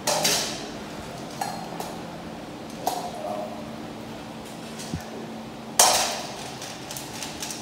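Stainless steel dog bowls clanking as they are handled and set down on a tiled floor: a few sharp metallic knocks with short ringing tails, the loudest right at the start and about six seconds in.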